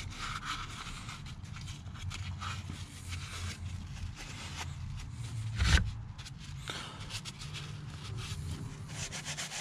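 A cloth rag wiping and rubbing over the DSG gearbox's filter housing, with faint scrapes and rustles, and one soft thump a little over halfway through.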